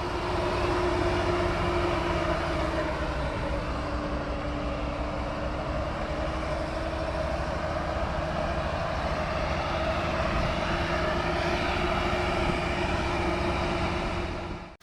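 Engine running steadily at high speed with a held tone over a dense rumble, cutting off abruptly at the end. It sounds like a diesel runaway: the engine is misfiring with thick black smoke and burning oil, and it can only be stopped by letting the oil burn out or cutting off its air.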